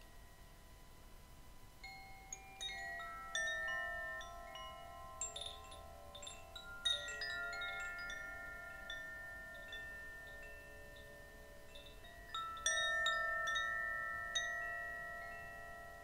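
A set of chimes sounded in three clusters, about two seconds in, around six to seven seconds in, and about twelve and a half seconds in. Their bright, overlapping tones ring on and slowly fade between clusters.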